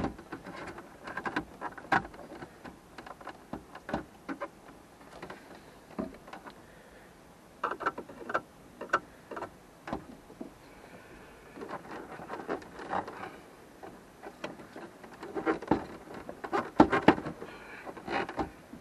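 Irregular clicks, taps and knocks with some rustling as dashboard trim pieces and tools are handled and worked loose, with a busier run of clicks near the end.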